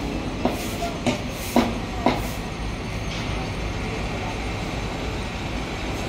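Steady low rumble of city street noise, with four sharp knocks about half a second apart in the first two seconds.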